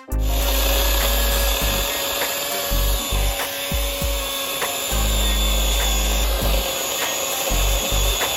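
Greenworks Pro 80V cordless battery chainsaw running steadily as its chain cuts through wood.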